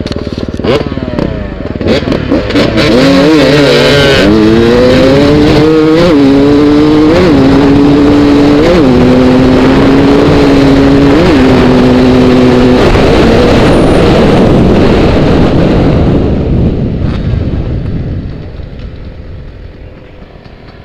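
A motor vehicle engine revs up and accelerates hard through several gears, its pitch stepping at each gear change. It stays loud for a while, then fades away over the last few seconds.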